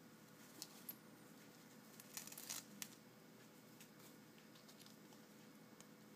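Faint rustling, crinkling and small clicks of a watch's packaging being handled during unboxing, with a short cluster of crinkles about two to three seconds in; otherwise near silence.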